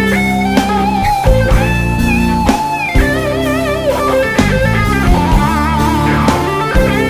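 Background music: electric guitar playing bending, vibrato-laden lead notes over a steady beat, in a bluesy rock style.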